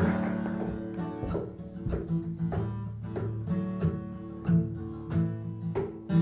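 Acoustic guitar being played, picked notes over a ringing chord in a steady, unhurried pattern.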